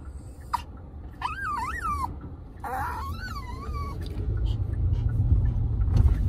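Maltese dog whining: a short cry, then two longer, high, wavering whines, the dog unhappy about riding in the car. A low car-cabin road rumble underneath grows louder in the second half.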